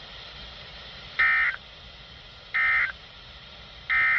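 Three short bursts of NOAA Weather Radio SAME digital data tones, about a second and a half apart: the end-of-message code that closes a severe thunderstorm warning broadcast.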